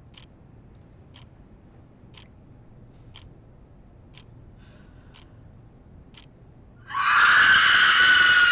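Steady faint ticking, one tick a second, then about seven seconds in a woman breaks into a loud, long, high scream that holds one pitch.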